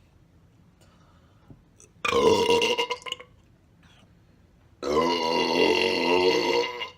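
A man burping loudly twice: a burp of about a second starting about two seconds in, then a longer burp of about two seconds near the end.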